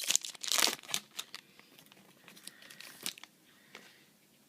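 Wrapper of a baseball card pack crinkling and tearing as it is opened by hand, loudest in the first second or so, then lighter rustling that dies away about three seconds in.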